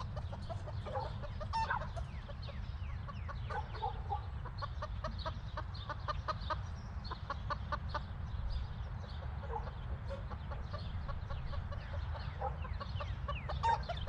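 Chickens clucking with small birds chirping throughout, over a steady low rumble.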